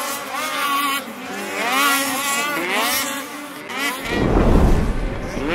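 Several snocross racing snowmobiles' two-stroke engines revving, their pitch rising and falling over one another, with a loud, deep rush about four seconds in.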